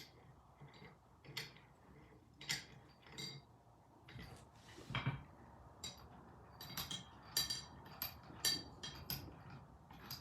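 Steel vise parts clinking and clicking as they are handled and fitted together during reassembly: irregular sharp light knocks with brief metallic ringing, and one longer, louder sound about five seconds in.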